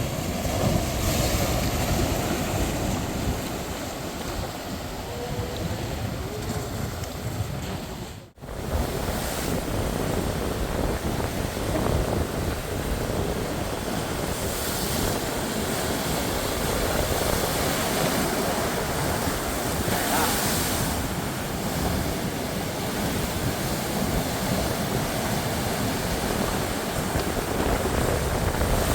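Ocean waves and surf washing steadily, with wind rumbling on the microphone. The sound cuts out for an instant about eight seconds in.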